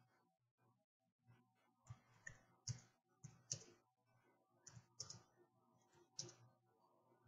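Computer keyboard keys clicking as someone types, in short clusters of keystrokes with brief pauses between them.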